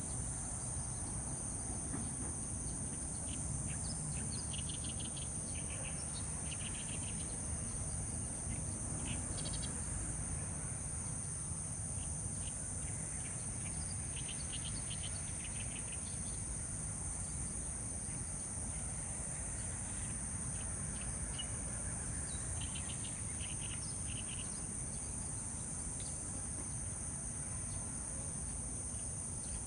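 Insects calling in a steady, high-pitched drone, with short pulsed chirring bursts coming and going several times, over a low background rumble.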